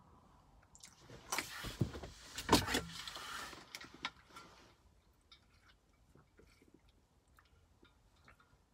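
Rustling and knocks as an insulated water bottle is picked up and its lid worked open, loudest about two and a half seconds in, then faint scattered ticks as it is drunk from.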